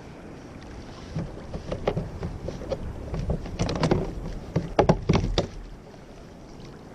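A fish being landed with a net on a kayak: a run of irregular knocks, clatter and splashing against the hull, starting about a second in and loudest around five seconds in.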